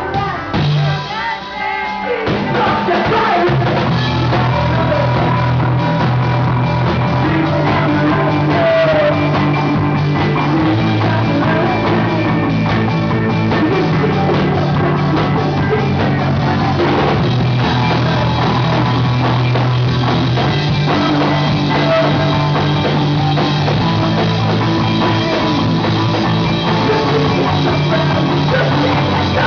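Rock band playing with drum kit and singing. The bass end drops away briefly about a second in, then the full band comes back in and plays on steadily.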